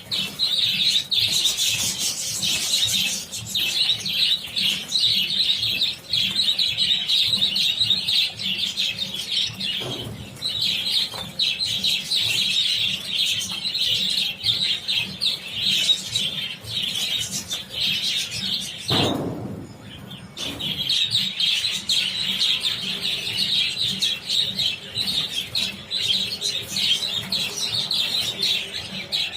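A large flock of budgerigars chattering and chirping continuously. The chatter breaks off for about a second and a half roughly two-thirds of the way through, then resumes.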